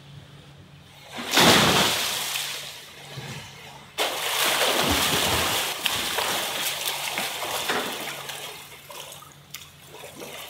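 Water splashing in a swimming flume: one loud splash about a second in, then the continuous splashing of a swimmer's freestyle strokes from about four seconds in, easing off near the end as he stops at the bar.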